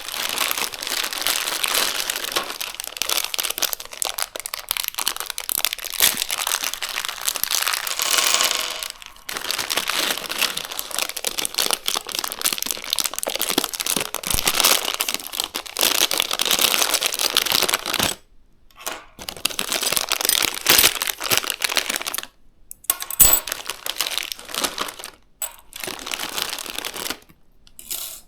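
Plastic packaging crinkling and rustling as it is handled and unwrapped by hand, in long stretches that break into shorter bursts with brief pauses in the last third.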